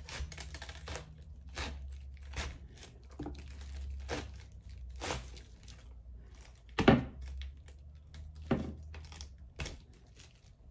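Kitchen knife sawing down through a raw head of cabbage: crunching, crackling strokes about once a second, the loudest about seven seconds in. The knife is too dull for the dense head, so it has to saw rather than slice.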